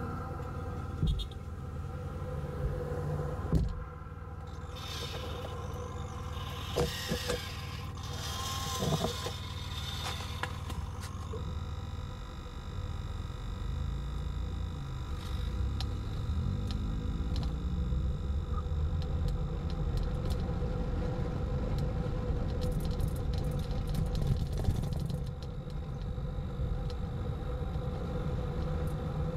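A vehicle's engine running steadily, heard from inside the cab, with a few short knocks and clicks in the first ten seconds.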